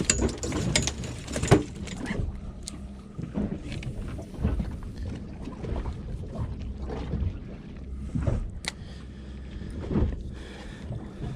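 Knocks, clicks and rattles of handling on a small fishing boat, thickest in the first two seconds, over a steady low rumble of water and wind against the hull.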